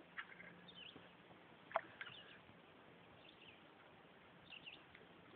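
Near silence: quiet outdoor stillness with faint, short bird chirps now and then, and one sharp click about two seconds in.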